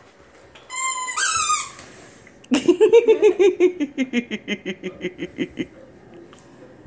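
A single high squeal about a second in, then a girl laughing in a long run of quick giggles that slows and tails off.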